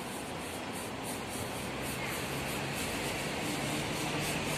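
Steady city street noise with traffic running underneath, a low engine hum growing slightly louder toward the end.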